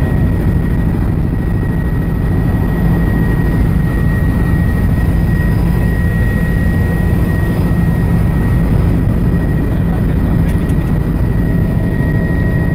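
Helicopter cabin noise in flight: a steady, loud drone of rotor and engine, with a thin high whine held throughout.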